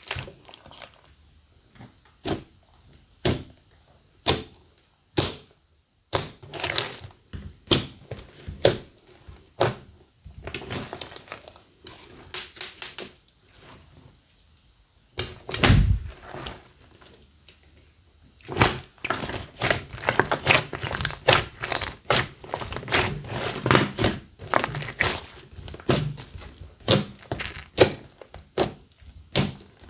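Slime made from glue and foam clay being squeezed and played with by hand: a run of sharp clicks, pops and crackles, sparse at first and dense in the second half, with one heavier thunk about sixteen seconds in.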